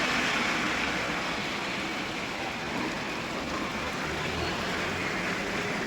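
Rain falling steadily, a continuous even hiss with no distinct drops or pauses.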